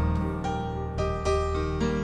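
Live worship music led by an electric keyboard: a slow passage of held chords that change every second or so over a steady low bass.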